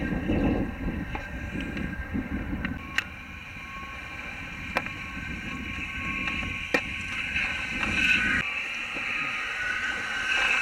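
Wind rumbling on the microphone over open water, with three sharp clicks about two seconds apart. In the last few seconds comes the hiss of a wakeboard carving and throwing spray.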